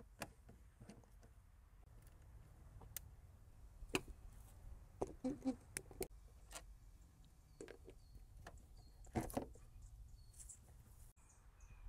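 Faint low rumble with scattered light clicks and taps, and a few brief louder knocks about four, five and nine seconds in.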